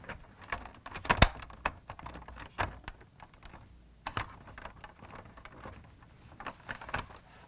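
Plastic body of a Kenner Knight 2000 toy car being handled and pressed down onto its chassis, its tabs pushed into the door-frame clips: an irregular run of light plastic clicks and taps, the loudest about a second in.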